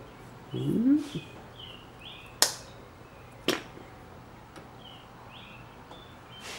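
Click-type torque wrench clicking twice, about a second apart, as the steering rack's adjusting screw is pulled up to the set torque; just before, a short rising squeak as the wrench is first pulled.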